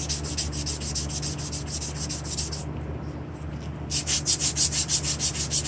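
Emery cloth rubbed by hand around a rusty steel axle shaft in quick back-and-forth strokes, about five a second, scouring the rust off so the new axle seal has a smooth surface. The strokes pause for about a second near the middle and then resume, briefly louder, over a steady low hum.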